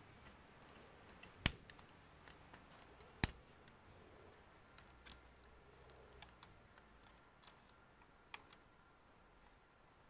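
Faint, irregular small clicks and taps from handling laptop parts and tools, with two sharper clicks about a second and a half in and a little over three seconds in.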